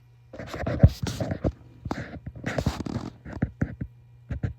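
Scraping and rubbing at the threads of a metal shower arm as layers of old thread-seal tape are picked and scraped off, followed by a few sharp clicks near the end.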